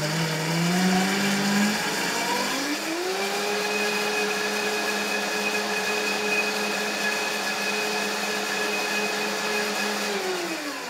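High-powered countertop blender blending soaked nuts and water to work out the lumps into a smooth cream. The motor whine climbs in two steps as the speed dial is turned up over the first few seconds, holds steady at full speed, then winds down near the end as it is switched off.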